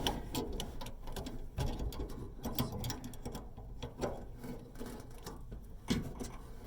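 Scattered small clicks, taps and rubbing as gloved hands work the idler pulley and its spring inside a Samsung dryer's sheet-metal cabinet, reaching in through an access hole.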